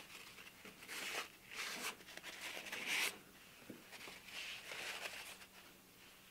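Paper towel wiping glue squeeze-out off a clamped wooden mold: several short rustling swipes of paper on wood, with crinkling of the towel.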